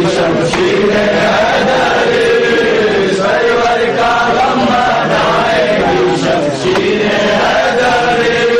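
Male voices chanting a noha, a Muharram lament, in one continuous wavering melody.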